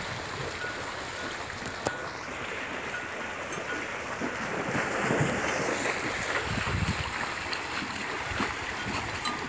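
Wind rumbling on the microphone over open water, gusting stronger around the middle. A faint short high note repeats every second or so.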